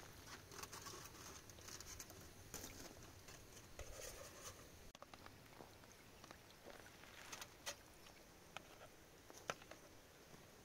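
Quiet kitchen handling: faint scattered clicks and taps of a metal spoon against plastic containers and a small pot as rice and a yellow mixture are spooned out.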